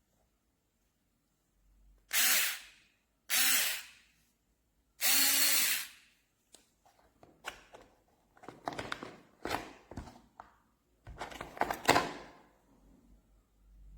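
Cordless electric screwdriver motor run in three short bursts, the last about a second long, followed by irregular clicking and rattling.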